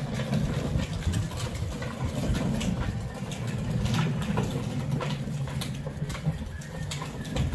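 Hard plastic wheels of a child's pedal tractor and its trailer rolling over concrete: a steady low rumble with scattered small clicks and rattles.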